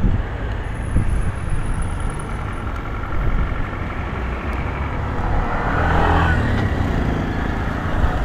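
Street traffic: a steady low rumble of motor vehicles, with one passing close by and growing louder around six seconds in.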